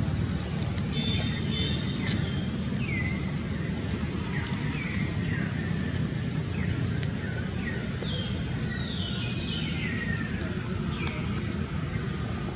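Outdoor ambience: a steady low rumble and a steady high-pitched whine, with short falling chirps about once a second.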